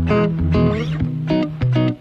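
Background music: a quick run of plucked guitar notes over a bass line.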